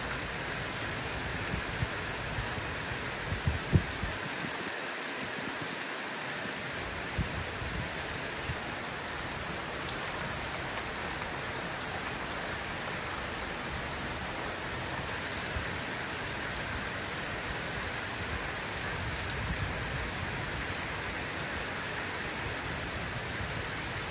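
Heavy rain pouring down in a steady, dense hiss, with a few short low thumps about four seconds in.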